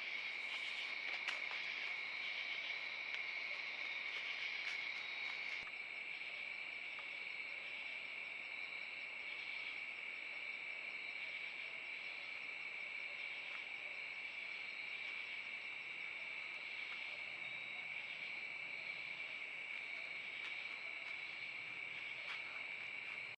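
Steady insect chorus of crickets: a continuous high-pitched trilling. A few faint clicks in the first several seconds.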